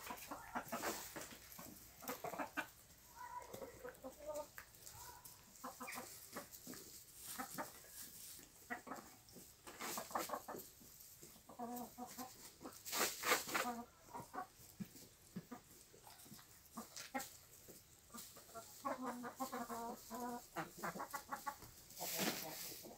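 A flock of Amrock chickens clucking: short pitched clucks a few seconds in, again around the middle and near the end. Scattered short clicks and rustles run between the calls while the birds peck and scratch in straw and snow.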